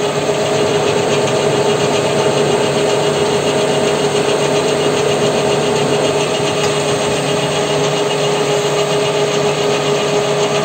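WM210V benchtop metal lathe running steadily with a constant motor whine while its cutter takes a pass along a spline groove in a steel half-axle.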